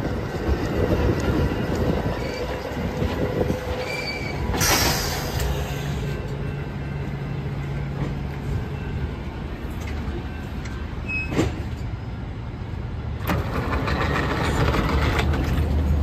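Passenger train standing at the platform with its engines running: a steady low rumble and hum, with a brief sharp hiss about five seconds in and a few clicks and short beeps. The low hum gets louder near the end.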